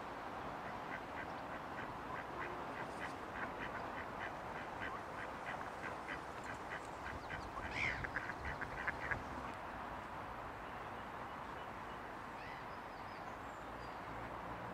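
A duck quacking in a long, even run of short calls, about three or four a second, with one louder call a little past halfway, then stopping.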